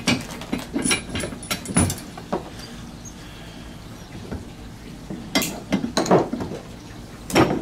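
Clinks and knocks of a metal mounting bracket being handled and fitted against a kayak's stern. The knocks are scattered, with a louder cluster about five and a half seconds in and another sharp one near the end.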